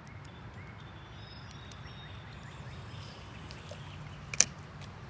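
Quiet outdoor pond ambience with a faint steady low hum, broken by a single sharp click from the fishing rod and reel being handled about four seconds in.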